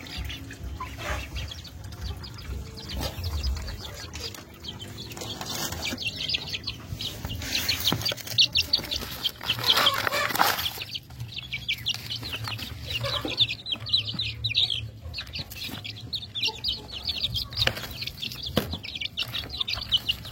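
Chickens clucking and calling, with many short high-pitched calls overlapping, loudest about halfway through.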